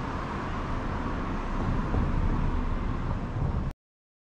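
Steady outdoor town ambience: a hiss and low rumble of distant road traffic, with no distinct events. It cuts off abruptly about three and a half seconds in.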